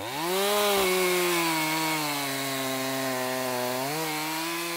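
Chainsaw engine revving up sharply and held at high revs. Its pitch sags a little, then lifts again about four seconds in.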